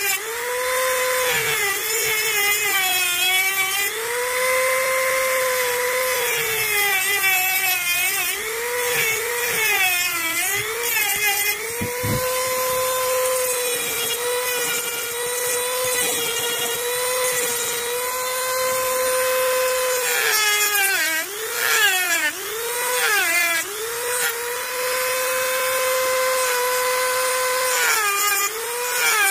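Hand-held rotary tool running at high speed, grinding and shaping a coconut shell. Its whine sags in pitch each time the bit bites into the shell and climbs back when the load comes off, with grinding rasp throughout.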